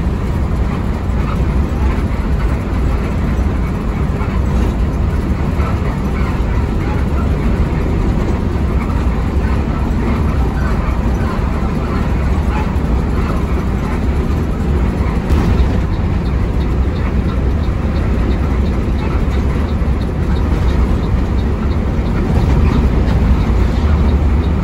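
An intercity bus's engine drone and road noise, heard from inside the cabin while it drives at speed. The sound is steady and low, growing a little louder near the end.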